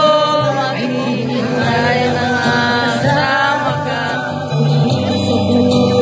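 Karaoke: a voice singing held, wavering notes through a microphone over backing music with a steady bass line.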